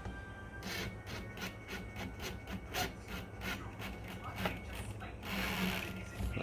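A screw on a battery terminal connector being tightened by hand while its nut is held, giving a run of short rasping scrapes at about three a second.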